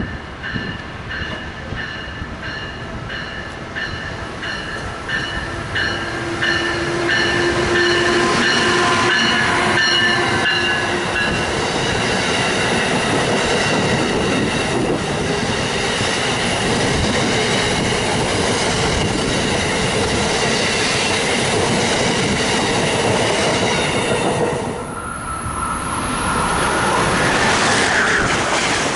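Amtrak passenger train of Amfleet coaches passing at speed on electrified track, a loud steady rush of wheels on rail that builds over the first six seconds. A repeating tone pulses about twice a second in the first few seconds. Near the end the sound breaks off briefly and another Amtrak Northeast Regional, hauled by an ACS-64 electric locomotive, rushes past.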